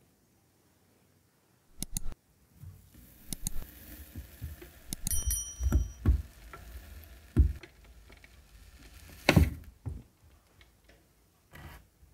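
Chef's knife cutting through a frozen ice cream loaf on a bamboo cutting board, starting about two seconds in: scraping through the frozen cream and several knocks of the blade on the wood, with a brief metallic ring from the blade midway and the loudest knock near the end.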